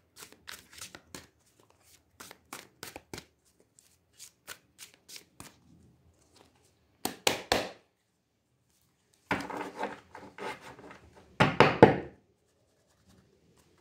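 Deck of oracle cards shuffled by hand: a run of light taps and flicks, then three louder brushing bursts in the second half.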